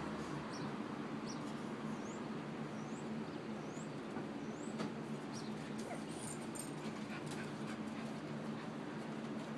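A dog whimpering in short, high-pitched rising whines, about one a second through the first half, over a steady low hum.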